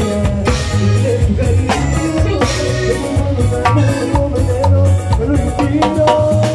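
Live Latin dance band playing, with drum kit and hand percussion over a stepping bass line.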